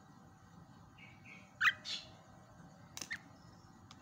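Javan myna calling: a few short whistled notes about a second in, then a loud, harsh call followed at once by a second one. Two sharp clicks come about three seconds in.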